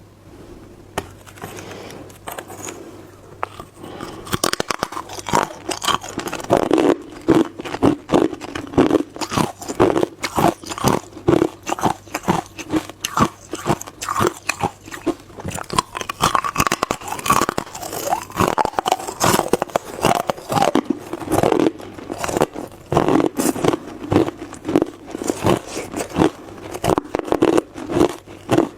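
Hard clear ice being bitten and chewed, with many sharp, rapid crunches and cracks. It starts fainter and becomes dense and loud a few seconds in.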